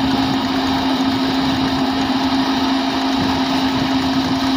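Tractor-driven threshing machine running while threshing pearl millet ear heads: a steady hum with one constant low note over an even rushing noise from the drum and engine.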